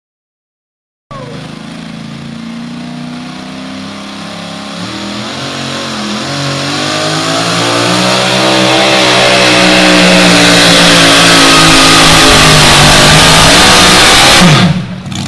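Supercharged engine of a two-wheel-drive pulling truck at full throttle while dragging a weight-transfer sled. It starts about a second in, with revs and loudness climbing steadily, then drops off sharply near the end as the throttle comes off.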